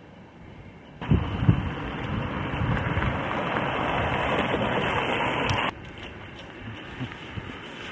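Wind buffeting the camera microphone: a loud rushing noise with a few low thumps starts suddenly about a second in and cuts off abruptly near six seconds, leaving a quieter hiss.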